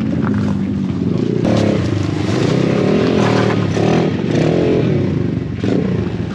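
Motorcycle engine running under way, its pitch rising and falling as it revs, with sudden changes about a second and a half in and again near the end.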